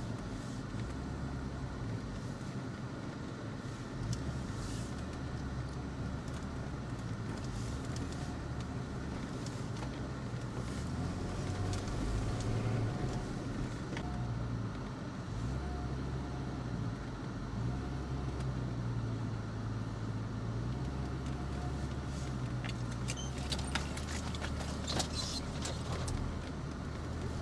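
Audi A6 C5 2.8 Quattro's petrol V6 engine running under load as the car climbs a rough dirt track, its note rising and falling with the throttle. Scattered clicks and crackles near the end.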